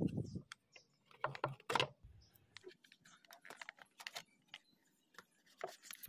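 Faint, scattered clicks, taps and scrapes of a refrigerator control board in its plastic case being handled and worked on with a screwdriver, a few louder clicks about a second in.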